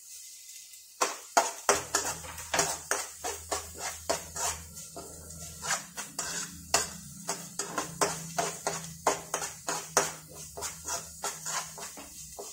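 A spoon scraping and knocking against a non-stick frying pan, about three strokes a second, as onions, green chillies and ginger-garlic paste are stirred while they sauté. A low steady hum joins about two seconds in.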